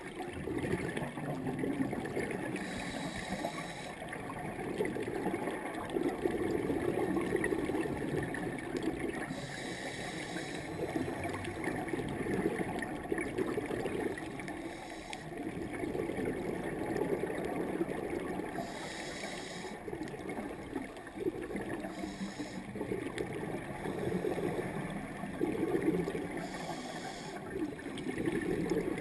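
Underwater sound of a scuba diver breathing through a regulator. Exhaled bubbles gurgle and rush in swells every few seconds, and about five short hisses of inhalation come at intervals of several seconds.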